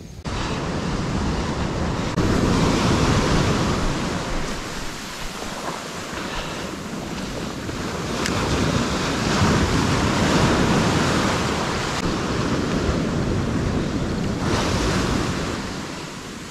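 Ocean surf breaking and washing up the beach, rising and falling in several surges of wash, with wind buffeting the microphone.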